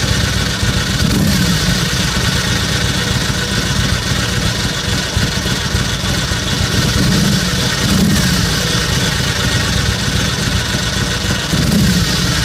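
An engine running steadily, with a short falling whine that comes back a few times: about a second in, twice a little past the middle, and near the end.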